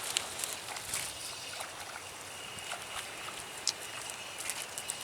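Light water splashing and scattered sharp clicks while a small snakehead, just hooked on a topwater lure, is fought in on ultralight tackle.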